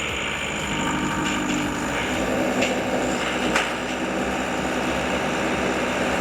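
Backhoe engine running steadily while the machine is repositioned on its bucket and stabilizer foot, with two short knocks about two and a half and three and a half seconds in.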